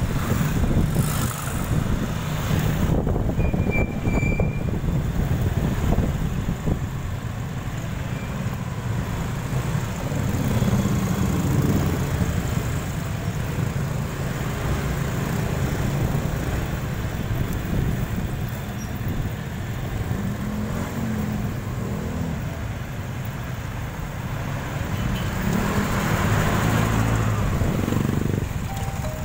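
Wind rumbling on the microphone over steady street traffic and vehicle engine noise.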